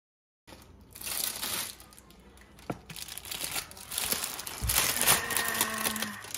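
Parchment paper crinkling as a baked salmon en papillote packet is pulled open on a baking tray, starting after about half a second of silence and getting busier in the second half.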